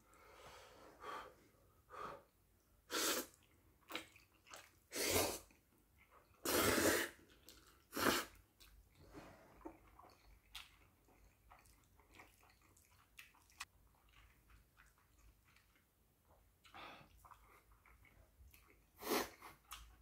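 Jjapagetti black-bean instant noodles slurped up from chopsticks in a series of loud sucking slurps, the longest about seven seconds in, with quieter chewing sounds between and one more slurp near the end.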